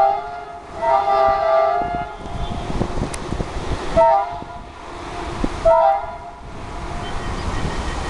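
WDM-3A diesel locomotive's horn: a held blast that ends about half a second in, a second blast lasting about a second, then two short toots about four and six seconds in. A rough rushing noise fills the gaps between the blasts.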